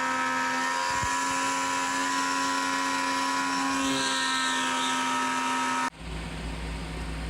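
A CNC router spindle milling 1/2-inch 6061 aluminum with a 1/8-inch single-flute end mill: a steady high whine with a cutting hiss. It cuts off abruptly about six seconds in, giving way to a lower, steady fan-like hum.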